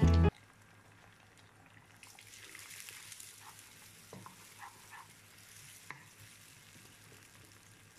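Egg frying in hot oil in a nonstick wok with a faint sizzle, stirred and broken up with a wooden spatula, with a few light scrapes and taps of the spatula against the pan. Background music cuts off just after the start.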